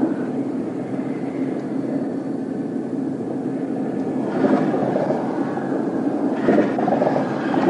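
Steady rumble of highway traffic going by a stopped patrol car. It swells twice, about four and six and a half seconds in, as vehicles pass.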